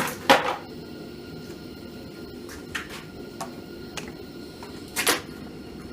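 Scattered sharp clicks and knocks of hands handling the quad's wiring and plastic connectors: two loud ones at the start, several fainter ones in the middle and another loud one about five seconds in.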